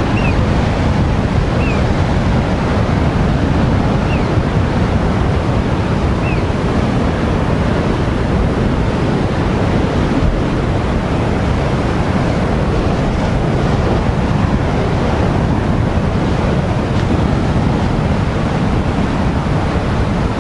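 Heavy ocean surf breaking and washing over coastal rocks, a steady loud roar, with wind buffeting the microphone. A few faint short high chirps sound in the first several seconds.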